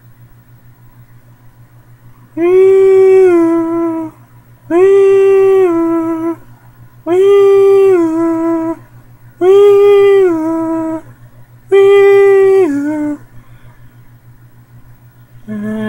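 A human voice giving five long, eerie howls in a row, each about a second and a half long, holding one high note and then dropping slightly at the end.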